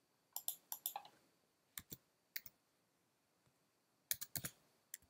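Light keystrokes on a computer keyboard: a quick run of about five key presses in the first second, two single taps, then another quick cluster of clicks about four seconds in.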